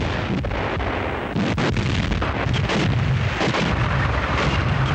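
Battle sounds: dense, unbroken gunfire with many rapid, irregular shots over a heavy low rumble of artillery and explosions.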